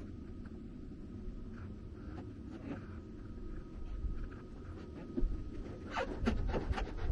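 Wind rumbling steadily on the microphone, with a quick run of short, sharp, high squeaks or calls about six seconds in.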